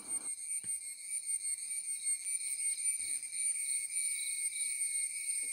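Steady chorus of insects in wet forest and grassland: two shrill tones, one high and one very high, with a fine even pulsing.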